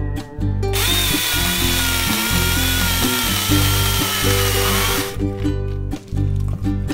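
18V cordless 6-inch electric mini chainsaw cutting through a log: a steady high motor whine over the chain's buzz, starting about a second in and cutting off suddenly about five seconds in. Background music with plucked guitar plays throughout.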